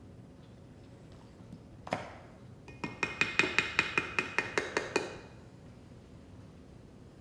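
A plastic measuring spoon knocked once, then tapped about a dozen times in quick succession, about five taps a second, against the rim of a glass measuring cup, which rings with each tap. This is the Dijon mustard being knocked off the spoon into the syrup.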